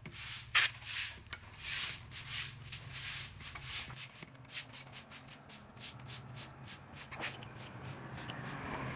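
Wrench loosening the intake manifold bolts on a Honda Revo engine: a run of short metallic clicks and scrapes, spaced out at first and coming faster, about three or four a second, from about halfway in.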